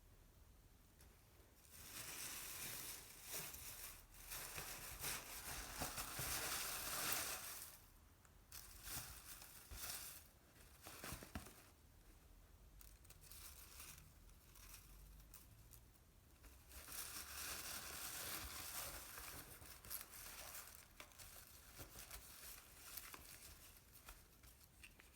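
Packaging being unwrapped by hand: paper or plastic wrapping crinkling and tearing in two long bouts, with scattered smaller rustles and clicks between them.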